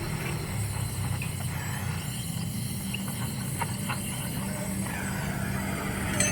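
A steady low mechanical hum, with a few light taps and a sharper click near the end.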